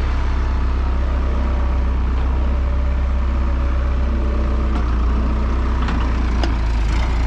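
Heavy farm machinery engine running at a steady speed, a deep continuous hum, with a couple of light knocks in the second half.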